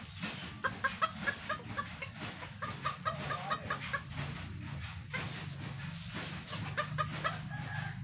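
Bantam chickens clucking in quick runs of short notes, mostly in the first half and again near the end, over a steady low hum.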